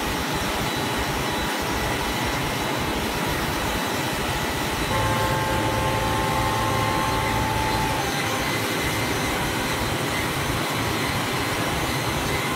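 Steady drone of running woodworking-shop machinery, with a faint high whine of a few steady tones joining about five seconds in and fading a few seconds later.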